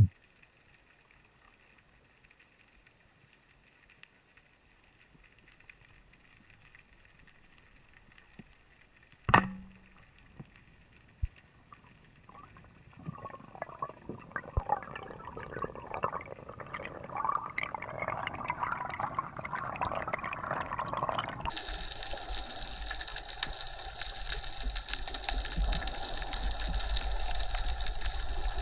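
Underwater sound from an action camera in its waterproof housing. It is mostly quiet at first, then a single sharp snap about nine seconds in as the speargun fires. After that a crackling water noise builds, and it switches suddenly to a loud, steady hiss about three quarters of the way through.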